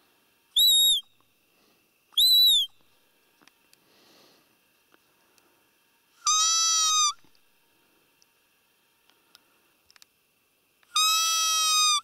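Roe deer call (a hunter's blown lure) imitating a doe to draw a rutting roe buck: two short, high-pitched peeps that rise and fall slightly, then two longer, lower, steadier calls about six and eleven seconds in.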